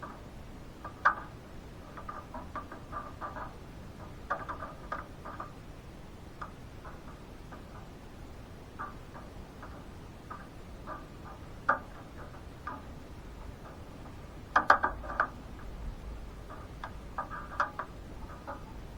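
Irregular tapping of rain dripping onto a hard surface, single drops and quick clusters of taps at uneven intervals, over a steady hiss.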